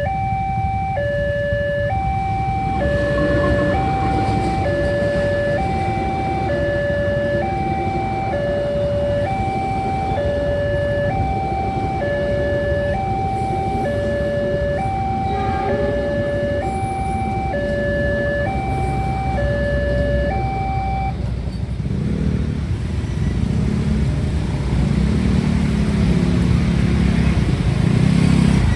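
Railway level-crossing warning alarm sounding two alternating electronic tones, high then low, each about a second long, over a steady rumble of road traffic. The alarm cuts off about three-quarters of the way through, after which vehicle engines grow louder.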